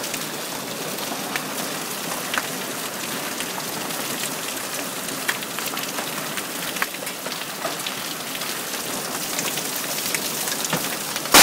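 Heavy rain mixed with hail pouring down, a steady hiss dotted with scattered sharp ticks of hailstones striking. Right at the very end, a sudden, extremely loud crack begins: a lightning strike on a tree close by.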